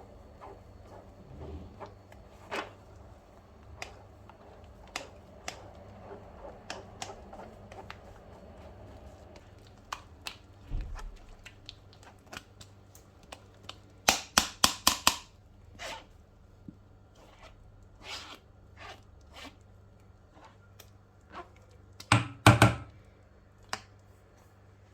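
Handling noises from kitchen utensils and containers: scattered light clicks and knocks, a quick run of five sharp clicks about fourteen seconds in, and two loud knocks near the end.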